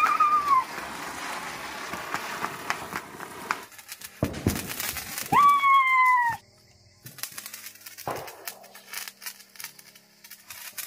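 A ground firework hissing and crackling as it sprays sparks. There are two short high squeals, one right at the start and a louder, slowly falling one about five seconds in. After a sudden drop, handheld sparklers fizz faintly with small crackles.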